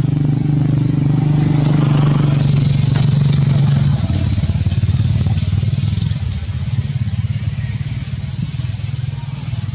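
An engine running steadily, its pitch dropping about four seconds in, with a steady high-pitched whine above it.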